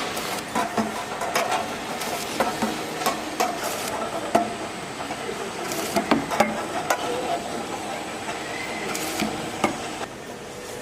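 Automatic bowl filling and sealing line running: a steady machine noise with many irregular clicks and knocks of containers and moving parts, and a short hiss of air about six seconds in and again about nine seconds in.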